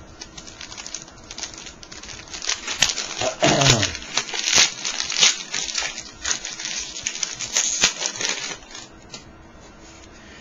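A foil trading-card pack wrapper is torn open and crinkled, making a dense run of crackles and rustles. About three and a half seconds in there is a short falling tone, and the crackling dies down near the end.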